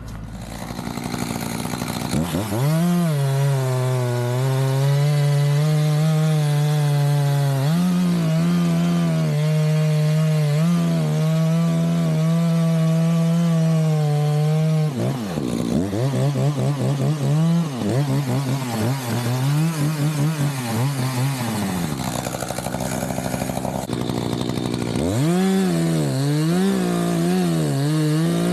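Two-stroke chainsaw engine. It revs up about two seconds in and holds at high revs, then in the second half its pitch repeatedly drops and rises as the throttle is worked.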